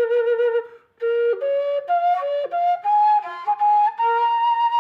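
Solo flute playing a melody: a held note with vibrato that breaks off just before the one-second mark, then a climbing run of short notes ending on a long, high held note.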